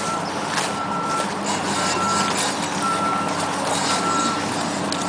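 Backup alarm on a piece of construction machinery beeping steadily, one tone about once a second, over the low running of a heavy vehicle's engine.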